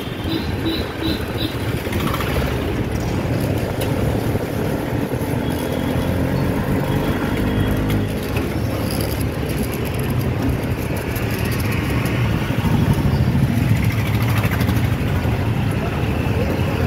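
Steady engine drone and road noise from a motor vehicle moving through city street traffic.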